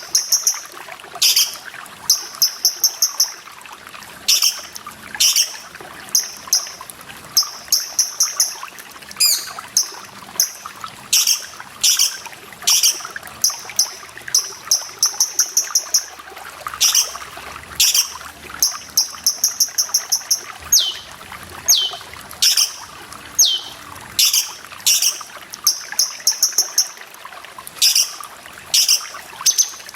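Cucak cungkok song: sharp high calls and rapid, buzzy trills repeated every second or so, with a few falling whistles just past the middle, over a steady trickle of running water.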